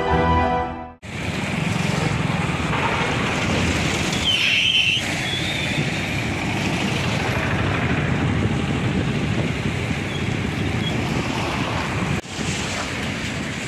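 Steady rushing noise of wind buffeting the microphone beside the swollen, flooding river. A brief high-pitched sound cuts through about four seconds in. The roar is preceded by a second of theme music.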